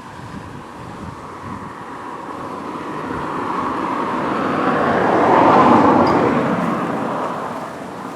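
A vehicle passing by: a broad rushing noise that builds gradually, is loudest about six seconds in, then fades away.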